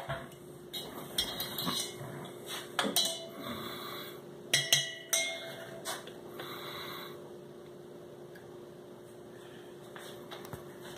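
A few clinks and knocks of a stirring utensil against a stainless-steel mixing bowl in the first half, some followed by a short ring from the bowl; then only faint room hum.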